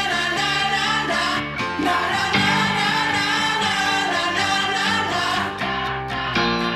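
Pop-rock song playing, a band with sung vocals.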